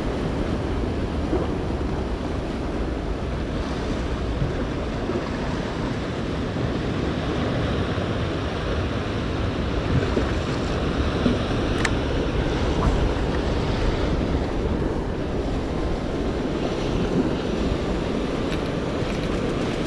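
Sea surf washing steadily against shoreline rocks, with wind blowing on the microphone.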